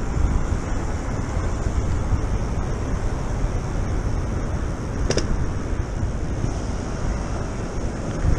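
Wind buffeting the microphone with a steady rumble while riding an electric mountain bike. A brief high-pitched ring cuts in once, about five seconds in.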